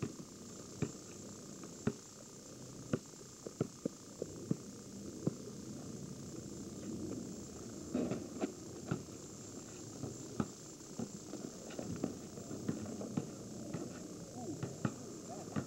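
A basketball bouncing on pavement and striking the hoop and backboard, heard as scattered sharp thuds at irregular intervals, over a steady faint high-pitched whine.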